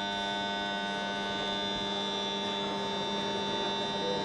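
Steady electrical hum made of several fixed tones, unchanging throughout, over a faint hall background.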